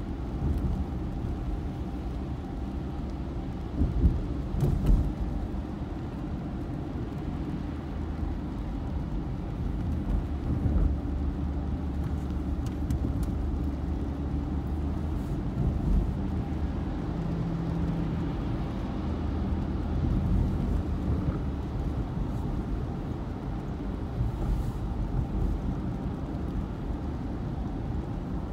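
Car driving on a wet road, heard from inside the cabin: a steady low engine and road noise, with a few short thumps about four to five seconds in.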